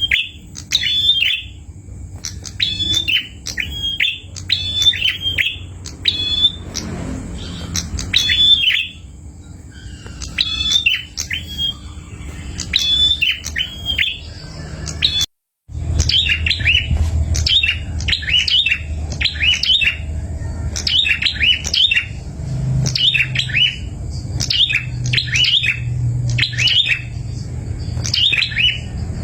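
Perenjak (prinia) calling: short, sharp chirps repeated in quick clusters about once a second. The sound cuts out for a moment about halfway through, then the chirping carries on.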